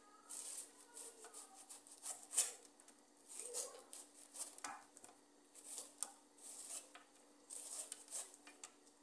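Kitchen knife shredding a hand-held head of cabbage into thin strips, a string of short slicing strokes, about one or two a second.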